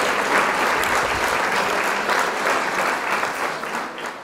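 Applause, a dense crackle of many hands clapping, fading away near the end.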